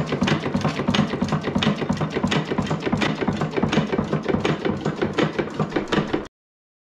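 Hopper-cooled hit-and-miss engine running, a steady rapid clatter of several knocks a second from its valve gear and flywheels turning. The sound cuts off suddenly near the end.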